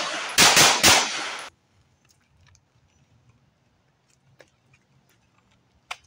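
Walther PPQ SC 9mm subcompact pistol firing a quick string of shots in the first second, with echo trailing off. Then faint clicks and rustling as the pistol is reholstered.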